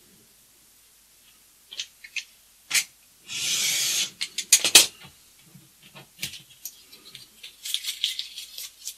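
Snap-off utility knife drawn along a steel ruler, slicing a strip off a sheet of paper: one hissing, rasping stroke of about a second, a few seconds in. Sharp clicks of the knife and ruler being handled come before and just after the cut, and smaller clicks and rustles follow near the end.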